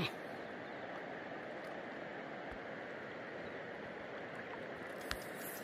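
River water running over stones: a steady rushing hiss, with one brief tick about five seconds in.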